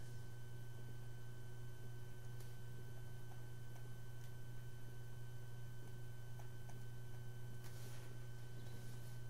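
Steady low electrical hum with a thin, steady high tone above it, and a few faint ticks.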